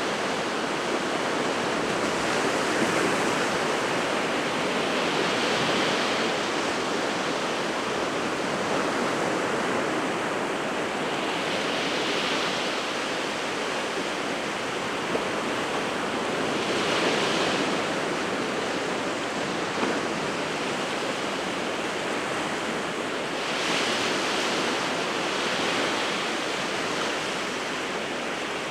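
Sea of Japan surf in winter: a steady rush of waves breaking and washing ashore. A fresh wave surges in every few seconds, each adding a burst of hiss before it fades.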